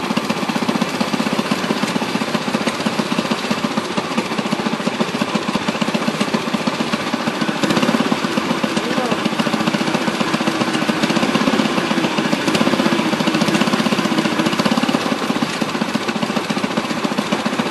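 Antique stationary gas engine and the belt-driven overhead shaft machinery it turns, running with a fast, steady mechanical clatter.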